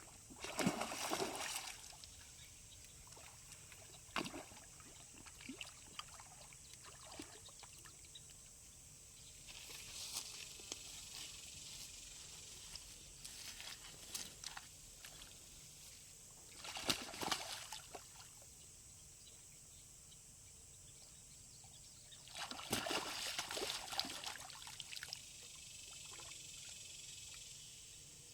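Water splashing and sloshing in a few short bursts, near the start, about midway, and longer toward the end: a hooked matalote (sucker fish) thrashing at the surface as it is played on the line. A steady high whine runs underneath.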